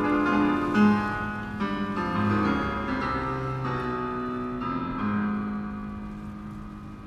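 Piano music playing over a Prius's car speaker system inside the cabin, ending on a held note that fades away near the end.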